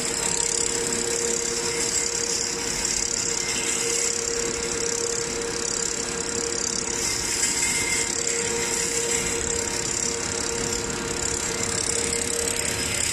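Straight-line wire drawing machine running steadily, drawing low carbon steel wire down through its dies: a constant mechanical hum with a steady mid-pitched tone and a high hiss.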